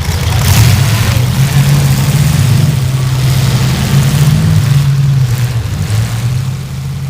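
Demolition derby car engines running loud and steady, a low engine note with small shifts in pitch as they rev.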